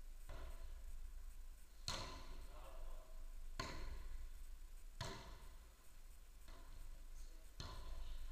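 A footvolley ball struck by players during a rally: four sharp thuds about every one and a half seconds, each echoing in a large sand-floored hall.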